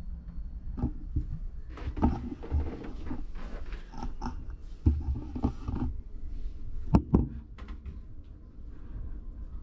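Irregular knocks, thumps and rustling, loudest as a sharp double knock about seven seconds in.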